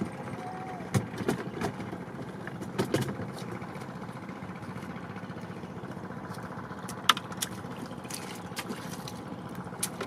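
Hands working at a bamboo prawn trap: scattered light clicks and knocks, the sharpest about seven seconds in, over a steady low background noise.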